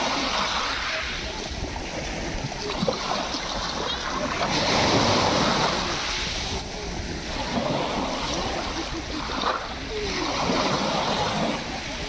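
Small sea waves breaking and washing up over a pebble beach, the hiss of surf and foam swelling and fading about every five seconds.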